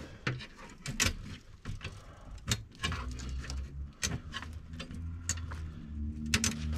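Small plastic clicks and rattles of wire-harness connectors being handled and lined up on a furnace control board. A low steady hum sets in about three seconds in.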